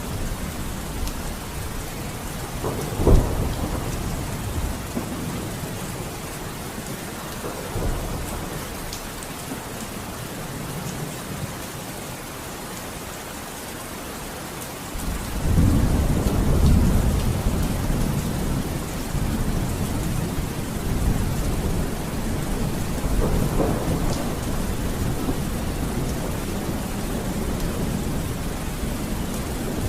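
Steady heavy rain with thunder: a sharp crack of thunder about three seconds in, then a long, low rolling rumble that swells up about halfway through and carries on under the rain.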